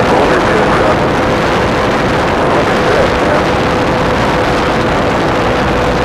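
Zenoah 20cc two-stroke gas engine of an RC biplane running steadily in flight, heard from a camera mounted on the plane, under heavy wind rush, with one steady tone through it.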